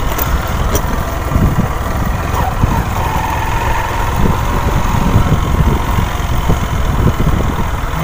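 Motorcycle engine running as the bike rides slowly along a rutted dirt track, with a dense low rumble throughout and a few short knocks from the rough ground.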